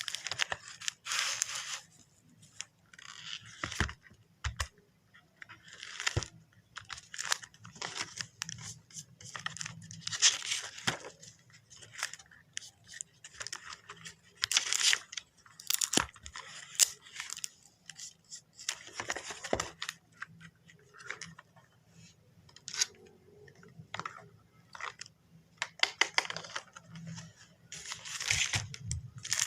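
Packaging being handled and torn open: bursts of rustling and tearing that start and stop every second or two, with scattered sharp clicks.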